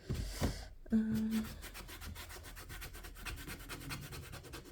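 Hand scrubbing on the plastic of a washing machine's detergent-drawer housing: a few loose strokes, then quick, even back-and-forth rubbing several strokes a second from about two seconds in.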